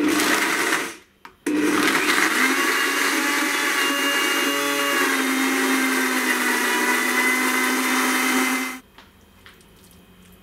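Countertop blender chopping basil leaves with olive oil into pesto: a short pulse of about a second, a brief stop, then a run of about seven seconds that cuts off suddenly near the end.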